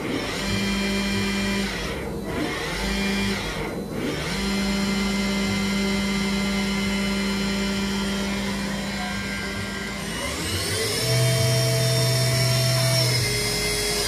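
Haas VF-2D vertical machining center running, its electric drive motors whining at changing speeds. The pitch dips and comes back up twice in the first few seconds, then rises about ten seconds in, holds, and falls away near the end.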